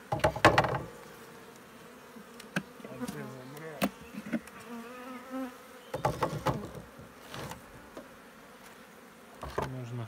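Honeybees buzzing around an open hive, single bees droning close by with a wavering pitch. A few short loud puffs break through, the last near the end from the bee smoker.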